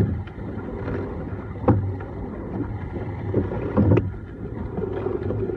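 Rowing shell under way: a clunk of oars and oarlocks comes with each stroke, about every two seconds, over a steady low rush of water and wind.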